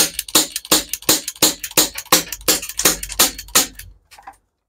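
BB gun fired in quick succession at a breeze block, about three sharp shots a second, stopping abruptly near the end with a few faint clicks after.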